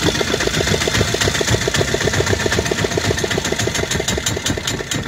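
Fishing boat's engine running with a rapid, even putter, which falls away at the very end.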